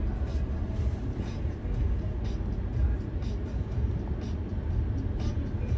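Steady low rumble heard from inside a car's cabin as it moves along the highway.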